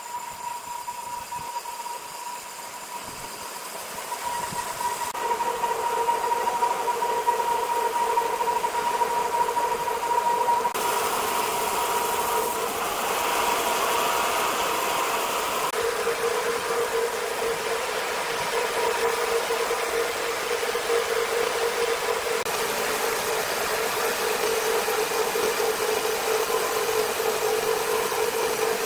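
Large horizontal band sawmill running with its blade cutting lengthwise through a giant log: a steady mechanical whine and hum over a rushing noise, getting louder about five seconds in.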